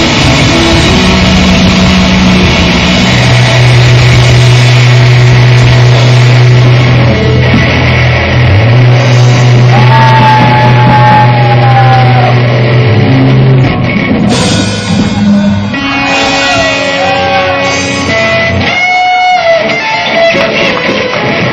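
Loud rock music with guitar, with long held low notes and a few bending guitar notes.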